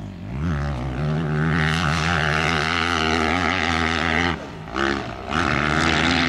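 Motocross bike engine running at high revs under hard acceleration up a hill, the rider lifting the front wheel. The engine note dips briefly twice, about four and a half and five seconds in, before coming back up.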